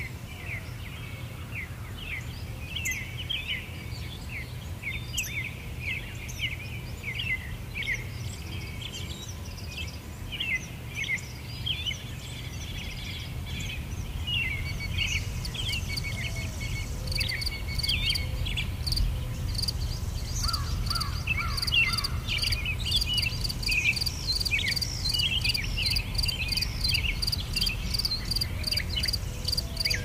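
Nature ambience of many birds chirping and calling in short, quick notes over a low steady rumble. About halfway through, a fast, evenly pulsing insect chirping, like crickets, joins high above the birdsong and carries on to the end.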